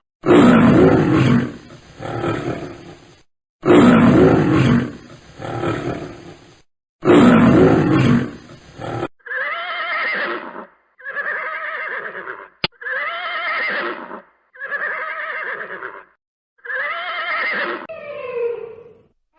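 A series of animal calls: three long, loud, rough calls with a deep low end, each trailing into a quieter second part, then five shorter, pitched, wavering calls of about a second and a half each. A single sharp click falls among the later calls.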